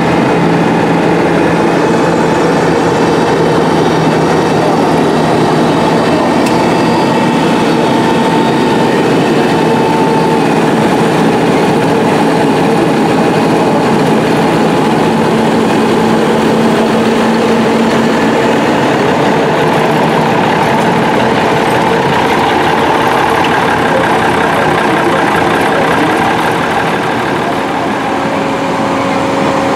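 Modern farm tractors' diesel engines running at low speed as they drive slowly round a show ring, a steady drone whose pitch shifts now and then as the engines change speed.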